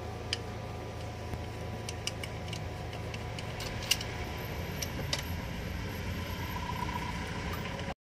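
Scattered light metallic clicks and clinks of hands and tools working at bolts and fittings on a car's transmission, over a steady low hum. The sound cuts off abruptly near the end.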